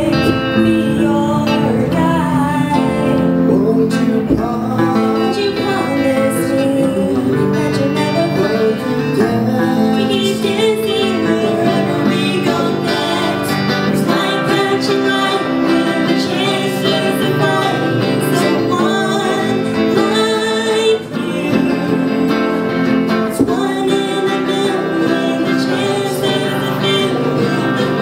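A man and a woman singing a duet into microphones, accompanied by a strummed electric guitar.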